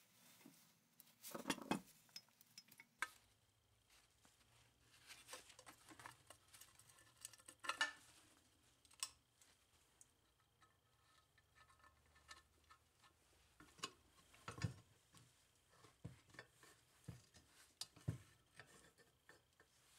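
Faint, irregular clinks and knocks of metal parts being handled: gears and the cast-metal case of a lawn tractor transaxle being picked up, fitted and set down. The sharper knocks come about a second and a half in, near eight seconds and near fifteen seconds.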